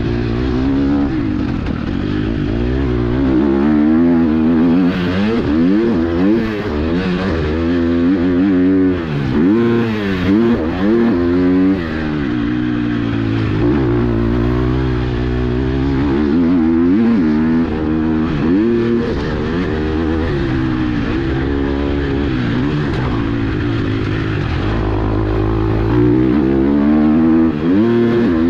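Motocross dirt bike engine being ridden hard, its pitch climbing and falling again and again as the rider opens and closes the throttle, with a few quick throttle cuts near the middle. It is heard close up from a camera mounted on the bike.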